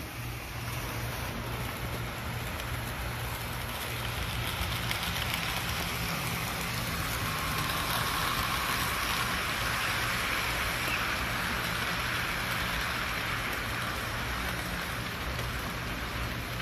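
HO scale model train running along the track: a steady whirring, rolling noise that swells from about four seconds in and eases off toward the end, as if passing close by.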